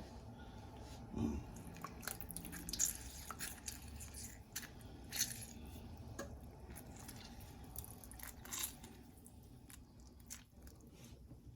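Hands squeezing a lemon and picking out its seeds: irregular wet squishing and small crackles, dying down near the end.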